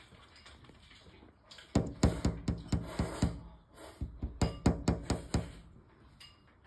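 Someone knocking on a hard surface: two runs of quick, sharp knocks, about five a second, with a short break between them.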